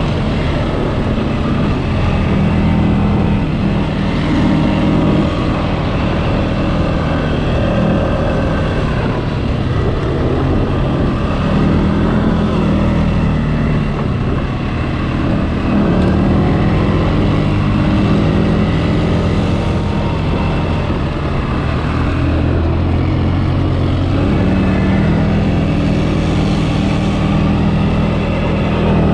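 CFMOTO ATV engine running while riding, its revs rising and falling every few seconds.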